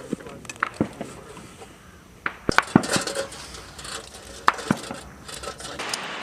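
A series of short, sharp metallic clinks and knocks at irregular intervals, clustered about two seconds in and again past four seconds.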